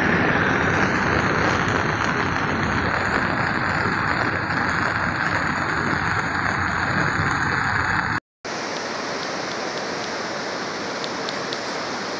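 Steady rushing noise of a swollen, muddy river in flood. The sound cuts out for a moment about eight seconds in, then resumes a little quieter.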